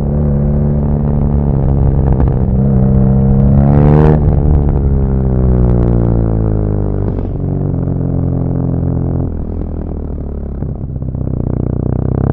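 BMW R nineT Pure's air- and oil-cooled boxer twin heard onboard, revs climbing for about four seconds to a sharp break, then falling away steadily as the bike slows. It settles lower and runs rougher near the end.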